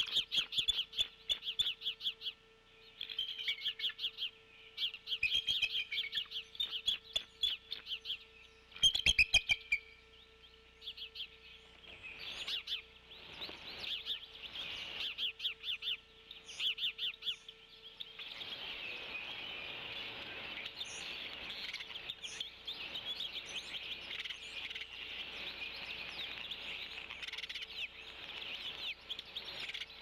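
Adult bald eagle giving rapid, high-pitched chattering calls in several bursts, loudest about nine seconds in: agitated calls at an intruding black bird. Later, small birds chirp over a steady hiss.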